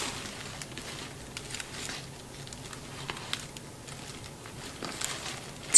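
Faint scattered taps and rustles of a cardboard camera box being handled and turned in the hands, over quiet room tone.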